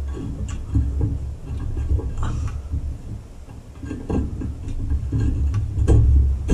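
Light clicks and taps of a screw and fingers against metal as the screw is worked by hand, trying to catch its thread in a riding mower's exhaust mounting. The clicks are scattered, a few seconds apart, over a low, uneven rumble.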